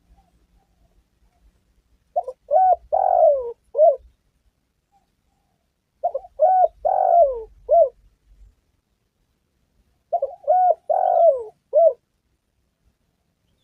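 Spotted dove cooing: three phrases about four seconds apart. Each phrase is two short coos, a longer falling coo, then a short final coo.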